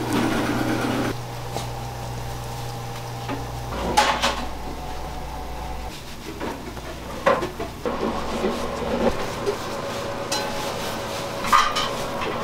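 Commercial kitchen clatter: metal pans and utensils knocking a few times, loudest about four, seven and eleven seconds in, over a steady low equipment hum that drops out about four seconds in.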